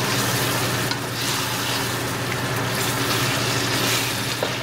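Vegetables in tomato sauce sizzling in a stainless steel pan while a spatula stirs them, a scraping swish about once a second. A steady low hum runs underneath.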